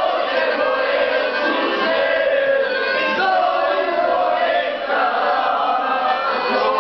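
A crowd of young men singing together in chorus, many voices at once, without a break.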